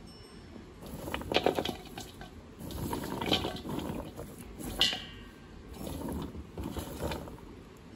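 Freshly chopped butterbur root pieces rustling and clicking against a stainless steel bowl as a hand stirs through them, in several short bouts.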